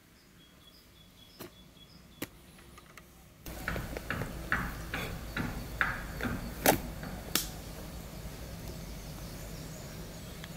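A few faint high chirps and clicks at first. A little over three seconds in, a louder background begins, with a run of about a dozen sharp clicks and knocks, the loudest about two thirds of the way through, then steady background noise.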